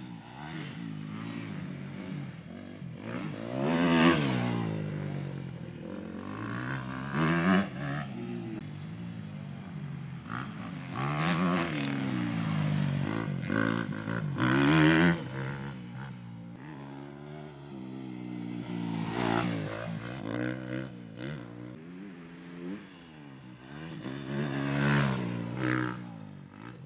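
Motocross dirt bike engine being ridden hard around a track, revving up and dropping off the throttle over and over, its pitch rising and falling with several louder surges every few seconds.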